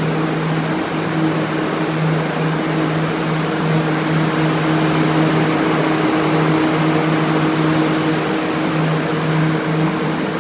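A machine running steadily: an even low hum over a constant hiss, with no change in pitch or level.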